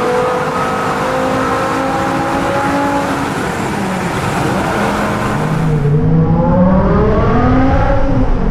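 The E60 BMW M5's 5.0-litre V10 heard from inside the cabin through an Eisenmann Race exhaust, pulling steadily with its pitch rising slowly. About six seconds in, the engine note drops and then climbs again as the car accelerates.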